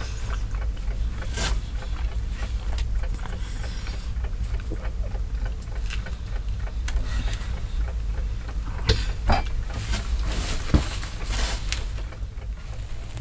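A spoon scraping and clicking against a frying pan while eating, with a few sharper clinks late on, over a steady low rumble.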